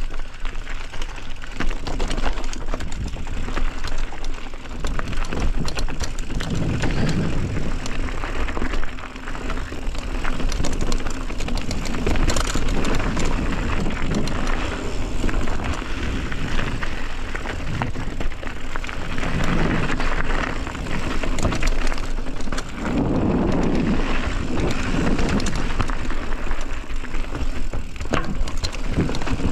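Mountain bike being ridden over a rough trail: continuous tyre noise with many small clatters and knocks from the bike over the ground, and a low rumble of wind on the microphone.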